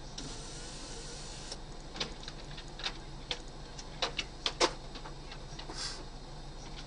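Steady low engine hum heard from inside a stopped vehicle. A hiss runs for the first second and a half, then about eight sharp clicks and knocks follow over the next few seconds. The loudest is a close pair about four and a half seconds in.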